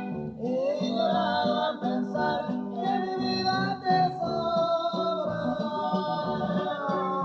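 Live Mexican regional music: a singer with guitar accompaniment. The voice slides up about half a second in, then holds long notes.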